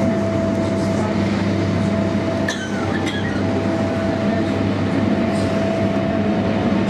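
Running noise of an electric passenger train heard from inside the carriage: a steady rumble and hum with constant tones. There are a couple of brief clicks about two and a half to three seconds in.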